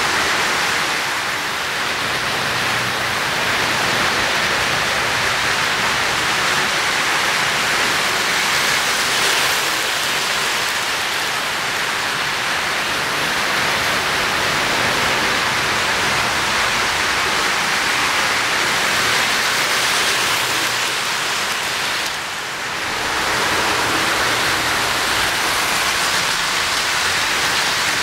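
O-scale three-rail model trains running on the layout: a steady rushing rumble of wheels rolling on the rails and motors running, briefly quieter about three-quarters of the way through.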